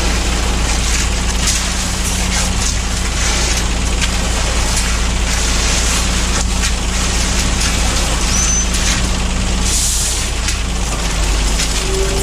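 A large engine running steadily with a constant low hum under a wash of mechanical noise; a short hiss about ten seconds in.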